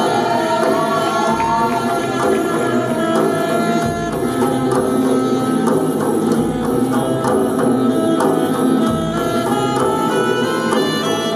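Music with hand drums and percussion over a slow, deep drum beat, accompanying a dance routine.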